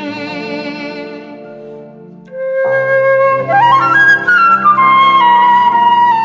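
A violin phrase dies away, and about two seconds in a concert flute enters with a held note, runs quickly upward and settles on a long high note over the band's sustained accompaniment, in a csárdás.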